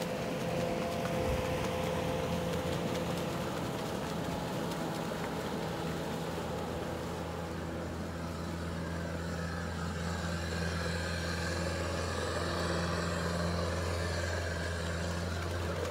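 Sherp amphibious ATV's diesel engine running steadily as the vehicle drives through a pond, partly afloat, a low even hum.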